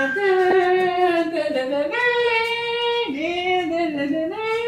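A high voice singing a slow melody in long held notes that slide up and down between pitches.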